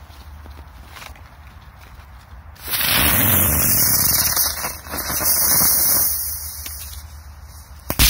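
Kometa 'Osa' ground-spinner firecracker hissing loudly as it spins and throws sparks for about four seconds, then a single sharp bang near the end.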